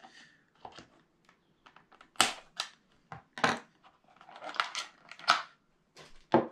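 Scissors snipping through plastic zip ties, a series of sharp clicks and snaps, followed by the pedals being worked loose in their plastic box tray with knocks and rustling.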